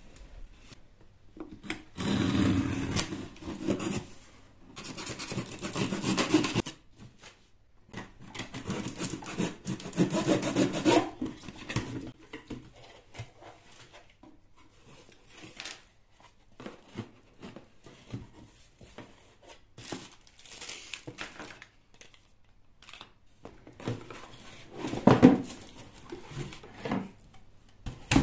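Cardboard delivery box being handled and opened: several long stretches of cardboard scraping and rubbing in the first half, then scattered softer rustles and knocks, with a louder scrape near the end.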